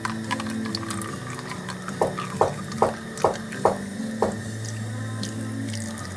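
Used engine oil pouring from the open drain plug into a drain pan, a steady stream of liquid. About two seconds in come six short sharp squeaks in quick succession, about two a second.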